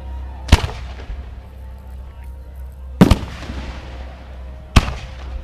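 Aerial fireworks shells bursting: three loud, sharp bangs, about half a second in, at three seconds and near the end, each followed by a fading echo. Music plays faintly underneath.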